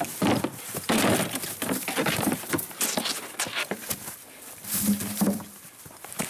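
A close sword-and-shield fight: sharp knocks of blows on wooden round shields, then the crunch and scuffle of feet through dry leaf litter as the two fighters close and grapple. A short grunt about five seconds in.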